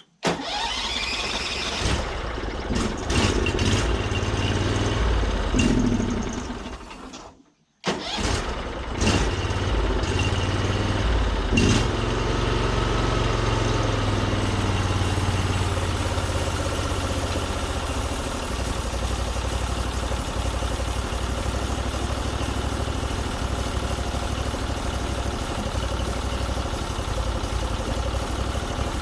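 Norwood MX34 portable bandsaw mill's gas engine running. It comes in abruptly, fades away to nothing about seven seconds in, then comes back suddenly after a short gap and runs steadily.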